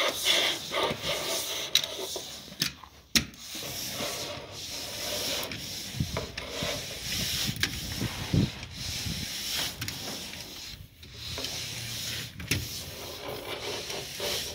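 Hand tool work on a wooden sailboat hull: steady scraping and rubbing, with scattered sharp clicks and knocks.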